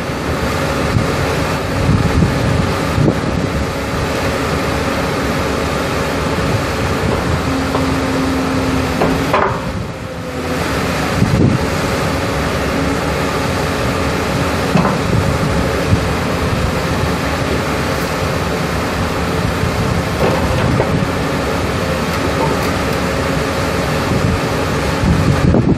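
Komatsu PC240LC-10 excavator's six-cylinder turbo diesel engine running steadily with a constant hum, with wind buffeting the microphone.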